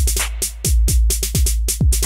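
Electronic beat from a drum machine: rapid drum hits and kicks that drop in pitch, over a deep sustained bass. The beat dips briefly about half a second in, then carries on.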